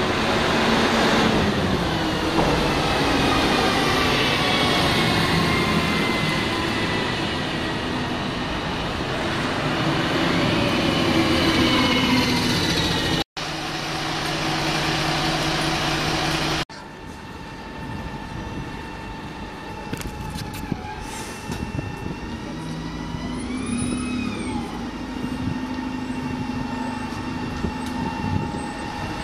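Diesel buses pulling away and passing along a town street, engine noise with a transmission whine that glides in pitch, amid general traffic. The sound breaks off abruptly twice and comes back at a different level, quieter in the last part.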